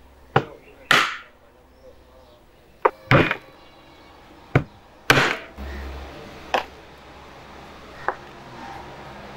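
Heavy meat cleaver chopping through goat bone and meat onto a wooden cutting board: about eight sharp, unevenly spaced strikes.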